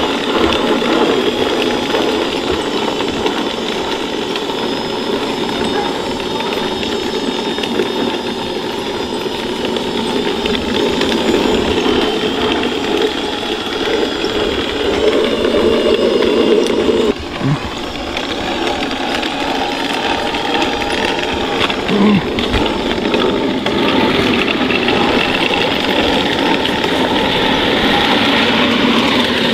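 1/6-scale Armortek Tiger I model tank driving, its electric drive motors whining steadily over the clatter of its metal track links. The sound drops briefly and changes a little over halfway through.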